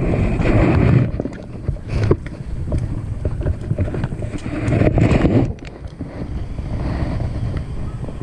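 Wind buffeting the camera's microphone, swelling in two louder gusts, with scattered clicks and rustles of handling.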